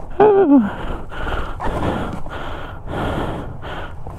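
A man's short falling groan, then quick, heavy breaths, two or three a second, as he strains free of tangling branches.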